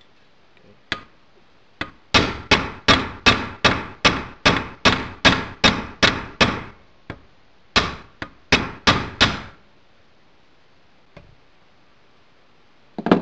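Hammer pounding a nail flat on the flat back of a bench vise. Two light taps, then a steady run of about a dozen blows at two to three a second, a short pause, and five more blows, each ringing briefly.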